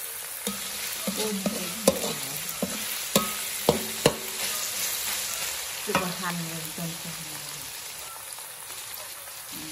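Pork pieces sizzling in oil in a metal wok while a metal spatula stirs and scrapes them, with sharp clanks of the spatula against the wok around two, four and six seconds in. The stirring eases off near the end, leaving the sizzle.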